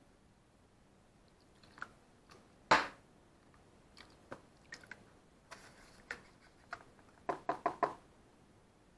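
A small paper soy-milk carton handled and squeezed while it is poured into a bowl: scattered light clicks and taps, one sharper knock about three seconds in, and a quick run of about five clicks near the end.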